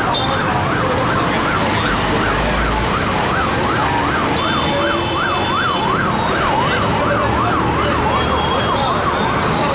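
Emergency vehicle's electronic siren in a fast yelp, its pitch rising and falling about three times a second, over street traffic noise.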